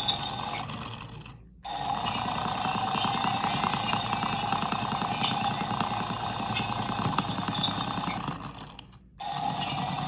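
Toy washing machine's small electric motor spinning the drum with a steady whine and rattle. About a second in and again near the end, it winds down almost to silence, then starts up again abruptly.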